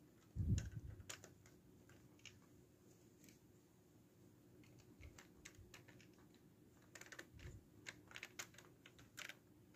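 Faint clicks and taps of LEGO plastic being handled as pilot minifigures are settled into a brick-built cockpit and the canopy is pressed shut. A soft low thump about half a second in is the loudest sound, and the clicks bunch together near the end.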